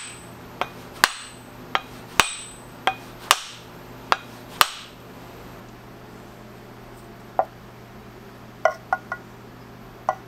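A lath hammer with a new wooden handle being rapped to seat the head, with about nine sharp knocks over the first five seconds. After a pause come a few lighter clicks and clinks near the end.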